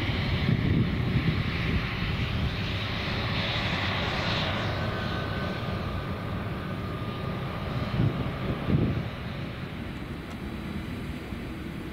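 Jet airliner's engines running as it passes, a steady roar that is loudest at first and slowly fades, with a faint whine in the middle.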